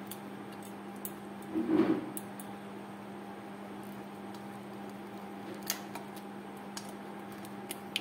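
Raw prawn being cleaned by hand: small clicks and crackles of shell and legs being pulled off, with a louder brief rustle about two seconds in, over a steady low hum.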